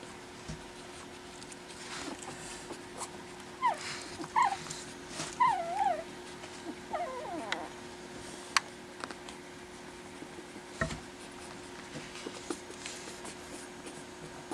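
Four-week-old Pekingese puppy whimpering: a handful of short, high, wavering whines in the middle, followed by a sharp click and a soft thump.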